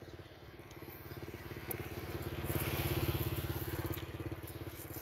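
Small engine running with a fast, even putter, growing louder to a peak about three seconds in and then fading away.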